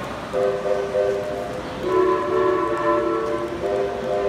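Model locomotive's sound-system diesel chime horn sounding in several long blasts, the chord shifting to a different set of notes about two seconds in.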